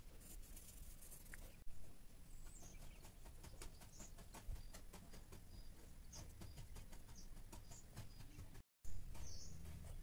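Graphite pencil scratching on sketchbook paper in rapid hatching strokes, with a few short, faint high squeaks among them.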